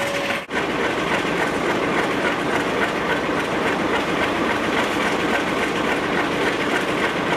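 MLW FPA-4 diesel locomotive running under way, heard from its roof: a steady din of the ALCO 251 diesel engine and its fans, with the wheels rolling on the rails.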